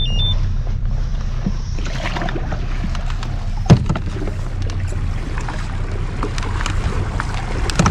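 Boat motor running steadily with a low hum, with a short high electronic beep right at the start and a single sharp knock about four seconds in.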